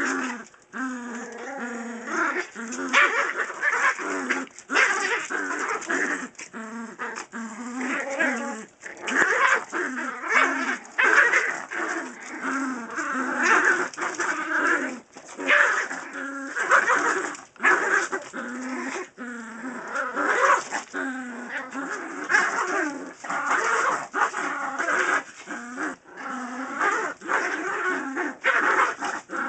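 Yorkshire terriers growling almost without pause in rough play over a tug toy, the growls rising and falling with short breaks between them.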